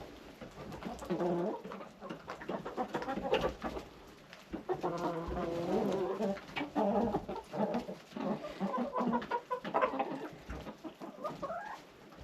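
A flock of chickens clucking and calling, with many overlapping low calls, busiest in the second half.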